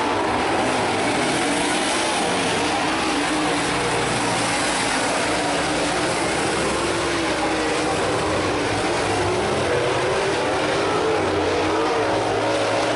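A field of dirt-track super late model race cars running on the track, their V8 engines droning together, with several engine notes rising and falling against one another.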